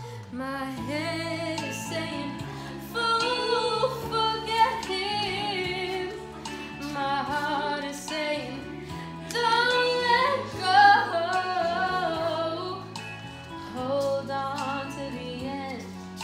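A woman singing karaoke into a microphone over a backing track, with a held, wavering voice.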